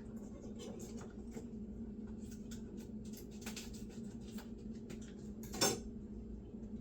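Light clicks and clatter of a knife and kitchen items being handled while a package is cut open, with one louder knock about five and a half seconds in. A steady low hum runs underneath.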